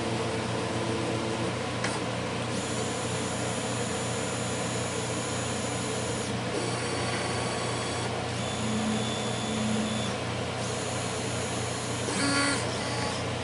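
CNC router's stepper motors whining in short runs as the machine steps the V-bit through its automatic touch-plate probing routine; the high whine starts and stops several times over a steady low hum.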